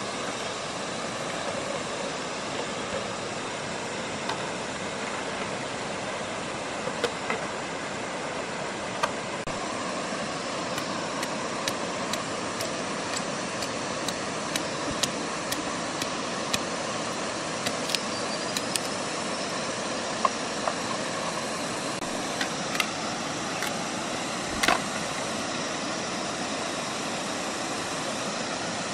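Machete chopping at wooden and bamboo sticks: sharp, irregularly spaced strokes that start several seconds in, the loudest one near the end, over the steady rush of a shallow river.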